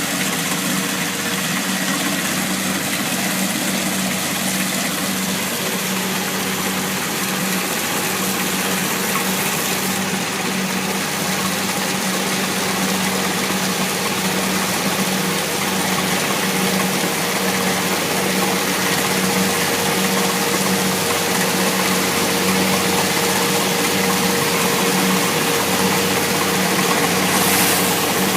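Kubota DC70 Plus combine harvester's diesel engine running steadily at a constant pitch.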